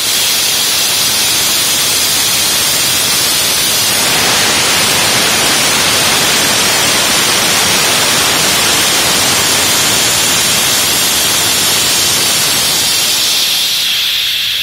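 Steady loud hiss, with no tones or knocks in it, brightening about four seconds in and easing slightly near the end.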